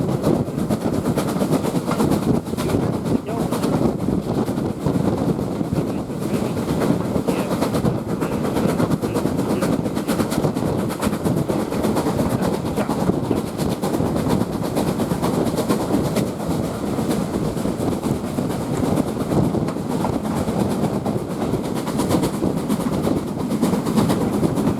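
Steam-hauled heritage railway carriage running along the line, heard from on board: a steady rumble of wheels on the rails with some clickety-clack.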